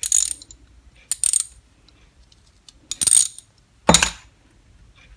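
Socket-set ratchet handles being handled: three short metallic clinking and rattling bursts, then a heavier knock about four seconds in as one is set down.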